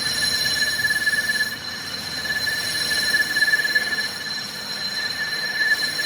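Steady high-pitched metallic squeal of metal rubbing or cutting on metal, easing slightly about one and a half seconds in and again near five seconds, then rising.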